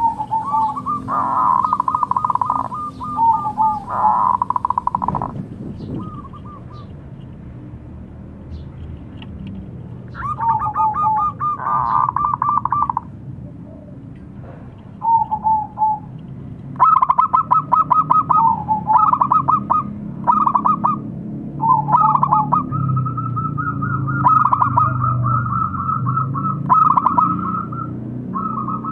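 Zebra dove (perkutut) cooing: repeated bouts of rapid, staccato coo notes, each bout a second or two long with pauses between, coming almost without a break in the last ten seconds or so.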